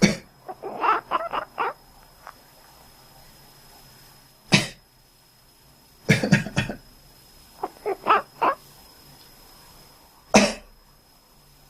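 A person coughs several times. Twice, shortly after a cough, a sleeping cat answers with a quick run of four or five short quacking calls.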